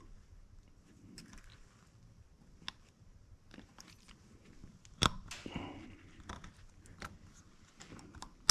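Faint small clicks and scraping of a steel spiral-lock wrist-pin retainer being worked into the groove of a piston's pin bore with fingertips and a small screwdriver, with one louder, sharper click about five seconds in.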